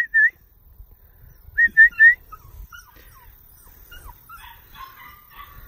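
Person whistling to call a puppy: quick, rising whistle notes, the end of one run at the start and three more about a second and a half in. Faint, short whines from the puppy follow.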